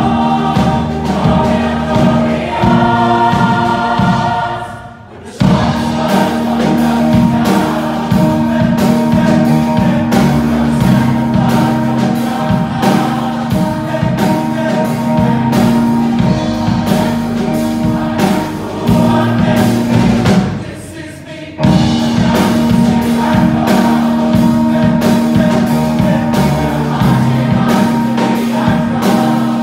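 A large mixed choir singing with band accompaniment over a steady beat. The music drops out briefly twice, about five seconds in and again about twenty seconds in.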